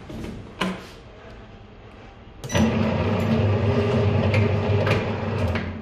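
A couple of knocks, then about two and a half seconds in a top-rotating PET can seaming machine starts. It runs with a steady hum for about three seconds as its head spins to seam the lid onto the can, and stops just before the end.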